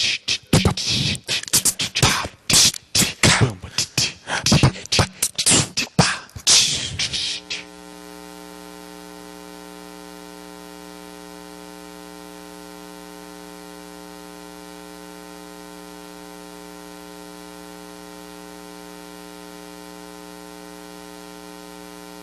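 A rapid, irregular run of sharp taps and pops on a live microphone through a PA system for about the first seven seconds, as in a microphone check. After that comes a steady electrical hum with a buzzy edge from the sound system.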